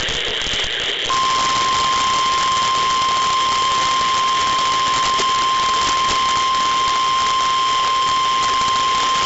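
Weather radio warning alarm tone: a single steady, high tone of about 1 kHz starts about a second in and holds, over constant radio hiss. It is the alert tone that announces a new warning, here a severe thunderstorm warning.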